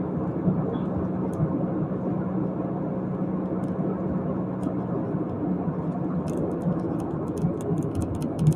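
Steady low whirring hum with a faint held tone, with a few single light clicks and then a quick run of light clicks near the end.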